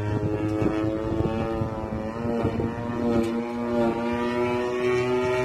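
Radio-controlled model airplane flying overhead: its engine makes a steady drone with a stack of overtones, the pitch wavering and shifting slightly as the plane manoeuvres.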